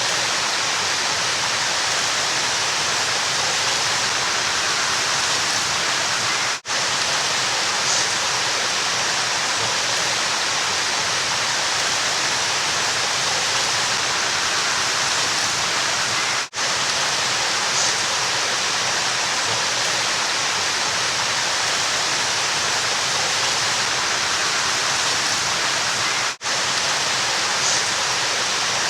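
River water rushing steadily, a continuous hiss of flowing water, with three very brief dips in level about ten seconds apart.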